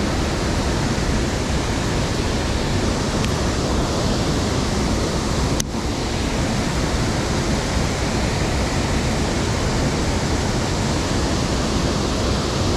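Steady rush of a waterfall on a high, flooded creek, with one brief click about halfway through.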